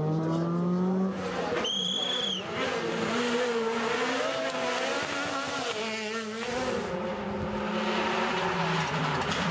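Rally car engines at high revs, heard in several short clips: one car's engine rising in pitch as it accelerates hard, a brief high tyre squeal about two seconds in, then other cars' engines revving up and down through a corner.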